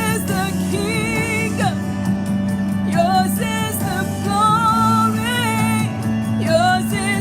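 Christian worship song playing: singing with vibrato over sustained instrumental backing.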